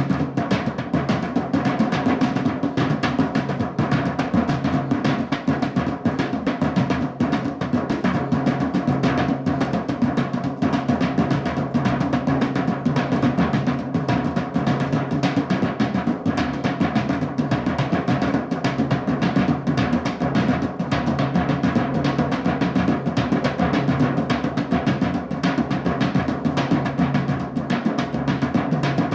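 Drumming music: a fast, dense stream of drum strikes at a steady level, with no let-up.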